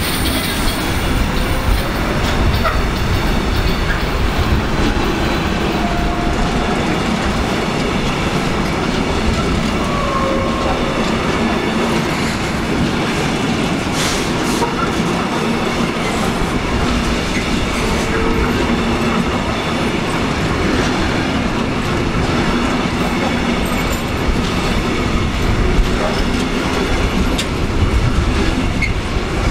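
Container freight train of flat wagons rolling past close by: a steady rumble of steel wheels on the rails with clickety-clack over the joints and short squealing tones here and there.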